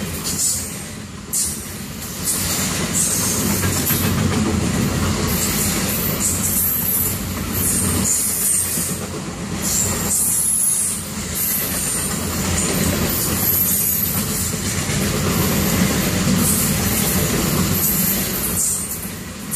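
Double-stack intermodal freight train rolling past: a steady rumble and rattle of steel wheels on rail, dipping briefly every couple of seconds, with high-pitched wheel squeal coming and going.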